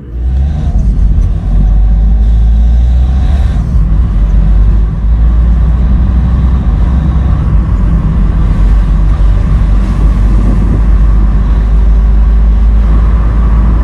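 Car running, heard from inside the cabin: a loud, steady low rumble that comes up quickly at the start and then holds.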